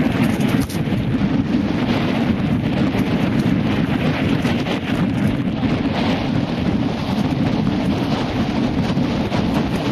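Wind buffeting a ride-mounted camera's microphone, with a constant rough rumble and rattle from riding fast over loose rocks and gravel.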